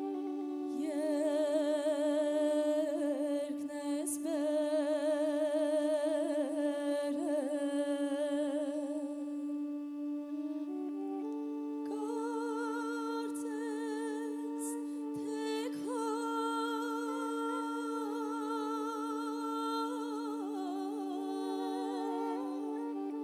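Armenian folk wind-instrument passage: a small wooden woodwind plays an ornamented, wavering melody over a steady held drone from a second wind player. About halfway through, the melody drops to a lower register and carries on over the same drone.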